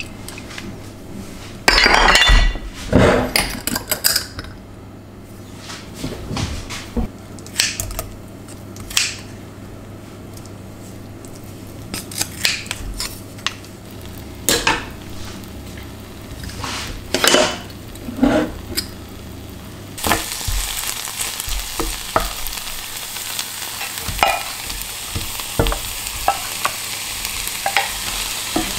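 Dishes and a utensil clinking and knocking against one another. About twenty seconds in, food starts sizzling in a hot pan, with the light clink of a utensil stirring.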